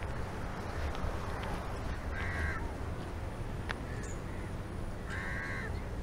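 Crow cawing twice, about two seconds in and again about five seconds in, over a steady low rumble of outdoor background noise.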